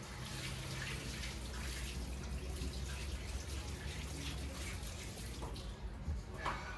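Kitchen faucet running into the sink, a steady splashing hiss of water.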